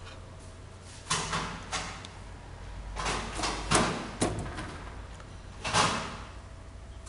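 Metal valve parts being handled and seated in a unit-pump valve lapping machine's holder: several short scraping and sliding noises, over a low steady hum.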